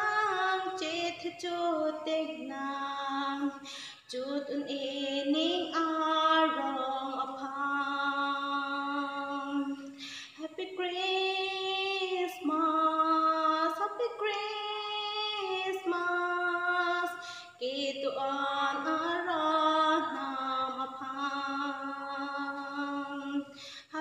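A woman singing a Christmas song solo and unaccompanied, in long held phrases with short breaths between them.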